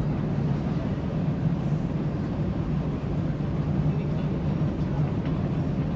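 Steady low hum of airport terminal background noise at the gate window, with indistinct voices mixed in.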